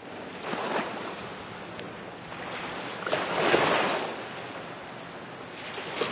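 Small waves washing up onto a sandy beach and drawing back, in two swells, the second louder about three seconds in.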